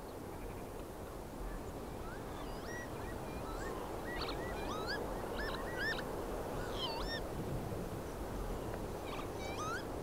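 Northern lapwings calling during their courtship display flight: repeated wheezy 'pee-wit' calls that slide up and down in pitch, starting about a second and a half in, over a steady background hiss.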